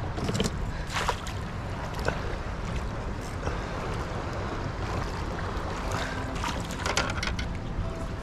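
Wind buffeting the microphone and small waves lapping against a kayak hull, with a few short sharp clicks and knocks about a second in and again near the end.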